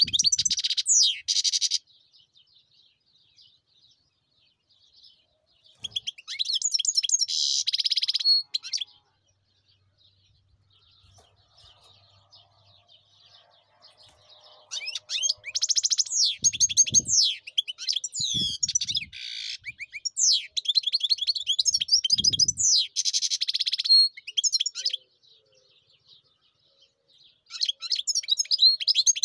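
European goldfinch singing: fast, high twittering song phrases in bursts. There is a short phrase at the start, another about six seconds in, a long run from about fifteen to twenty-four seconds, and a fresh phrase near the end. A few soft low thumps fall during the long run.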